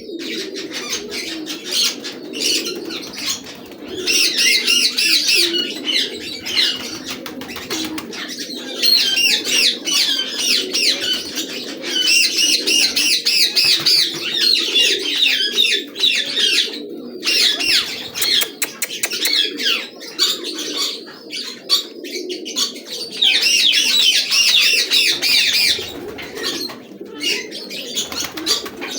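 Several birds calling together: bouts of rapid, high warbling chirps, each lasting a few seconds and coming several times, over a continuous lower chorus of calls.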